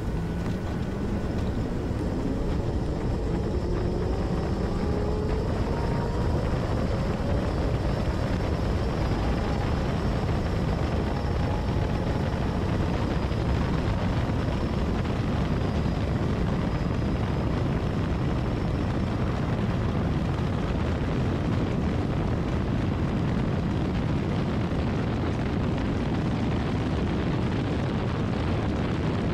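Electric land-speed streamliner motorcycle at full acceleration: the electric motor's whine rises steadily in pitch over a heavy, constant wind roar. About two-thirds of the way in, the whine fades into the rushing wind.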